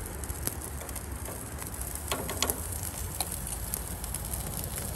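Oysters on the half shell and skewered shrimp sizzling on a gas grill, an even hiss dotted with small crackling pops over a steady low rumble.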